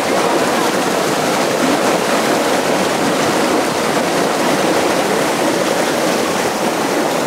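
River water rushing steadily over and between rocks, an even, unbroken rush.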